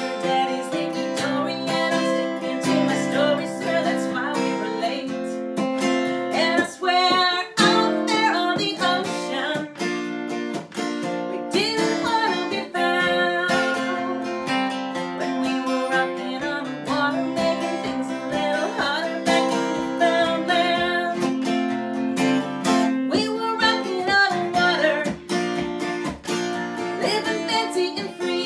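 A woman singing while strumming chords on a steel-string acoustic guitar.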